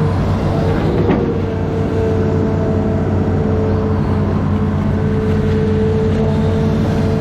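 Amphibious excavator's diesel engine running steadily, with a steady whine over it and a single brief knock about a second in.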